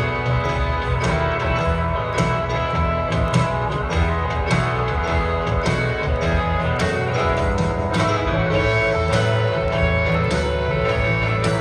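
Live band playing an instrumental passage with no vocals: guitars lead over drums and bass, heard through the hall from the audience.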